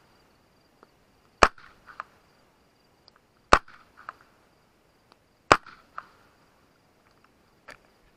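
Three suppressed 9mm shots about two seconds apart from a pistol-caliber carbine fitted with an AB Suppressors F4 can, firing 115-grain supersonic ammunition and heard at the muzzle. Each sharp report is followed by a few fainter ticks.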